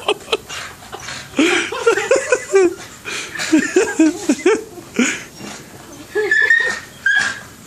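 Pit bull making a string of short whining cries that rise and fall in pitch, one after another, with a higher-pitched cry near the end. He is straining up at oranges hanging out of his reach.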